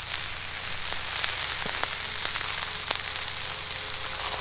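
Sausages and steaks sizzling on a Feuerplatte (steel fire-plate grill): a steady hiss with scattered small pops.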